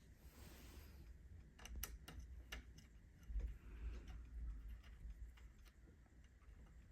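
Faint, scattered clicks of small metal parts and tools being handled, with a few sharper clicks about two seconds in and a soft low thump a little later.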